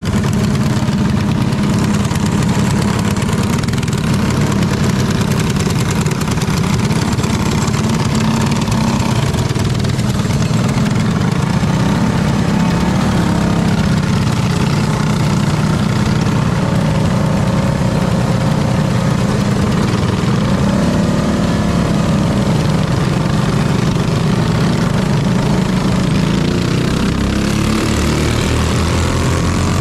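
Small kart engine heard onboard, running hard at a steady, loud drone while racing, with other karts' engines close by drifting up and down in pitch.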